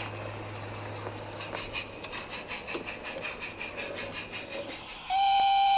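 Quiet background hiss with faint light ticking as small-scale model railway coaches roll slowly along garden track. About five seconds in, a steady high tone with overtones starts abruptly, much louder, and holds.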